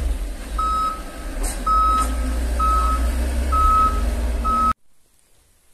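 Reversing alarm of a compact loader clearing snow, beeping steadily about once a second over a low engine rumble. The sound cuts off suddenly near the end.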